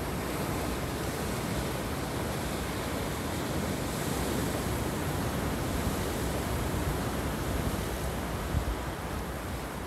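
Sea surf breaking and washing over rocks and a pebble beach, a steady even wash of waves.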